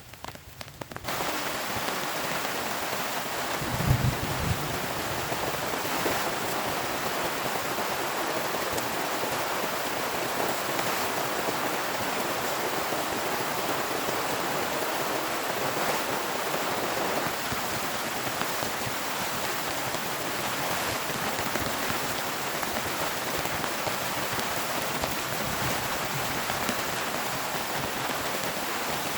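Heavy rain falling steadily, coming in suddenly about a second in, with a brief low rumble about four seconds in.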